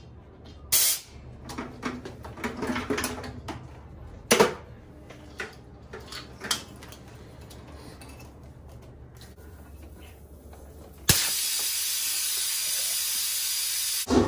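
Knocks and clatter as a small 10-gallon air compressor is unplugged and its fittings handled. About 11 seconds in, compressed air hisses out loudly and steadily for about three seconds as the tank is bled, then cuts off abruptly.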